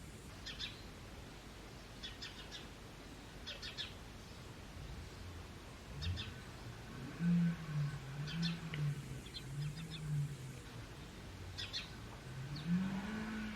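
Small birds chirping in short rapid bursts, about one burst a second. About halfway through, a low wavering sound joins in and grows louder near the end.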